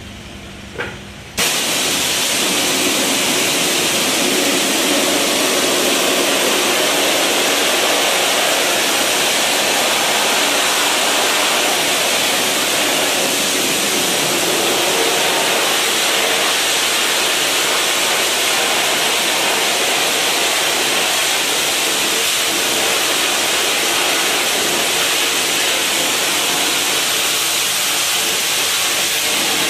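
High-pressure water jet from a pressure washer's T-bar spray wand blasting grime out of a metal channel drain: a loud, steady hiss of spray that cuts in suddenly about a second in.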